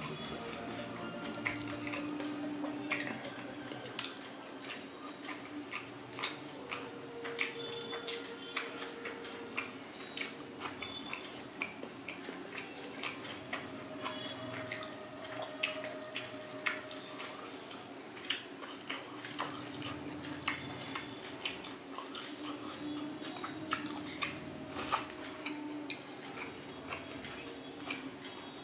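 Close, wet clicks and smacks of fingers picking apart a whole cooked pomfret in gravy on a plate, with the small sticky mouth sounds of eating, a few sharp ticks each second.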